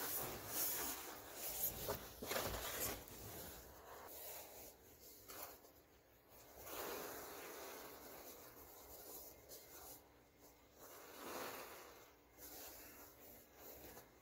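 A large mass of fine white powder pouring and thudding into a plastic tub in the first few seconds with a soft rushing hiss. It is followed by quieter rustling swells as the dust settles and the powder is handled.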